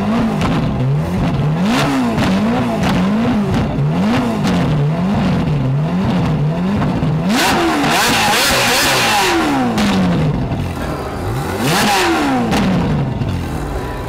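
Ferrari 458 Italia's 4.5-litre V8 through a Capristo aftermarket exhaust, revved while standing: a quick run of short blips for about seven seconds, then two longer revs that climb and fall away more slowly. The first long rev turns much harsher and brighter near its peak.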